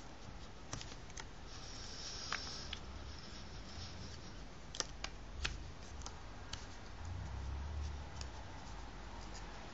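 A paper strip being folded and creased by hand into triangles: faint crinkling with scattered sharp little clicks of paper, and a soft rustle about two seconds in.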